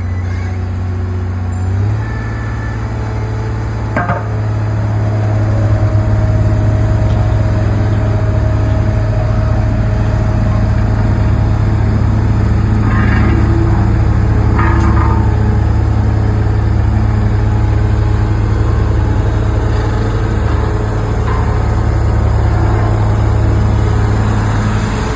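Excavator's diesel engine running steadily with a deep hum. There is a sharp knock about four seconds in and a few short high squeaks later on.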